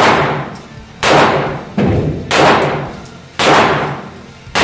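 Canik TP9SF 9 mm pistol fired about six times at an irregular pace of roughly one shot a second. Each report rings out in a long echo off the indoor range's walls.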